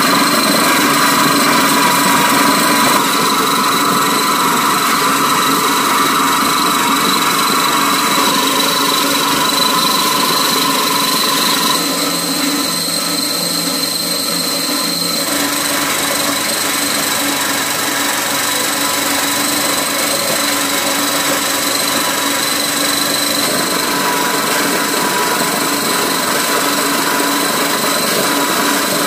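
Small motor-driven grain mill grinding dried corn kernels into meal. It runs steadily, with a high whine.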